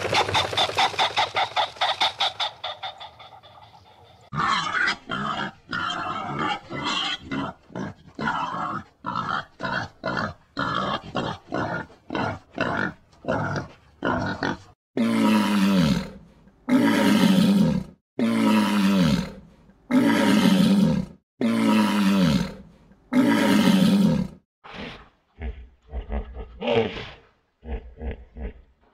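A big cat calling: a fast run of pulsed calls at first, then irregular short grunts, then a series of loud, deep roars about a second each that fall in pitch, giving way to shorter grunts near the end.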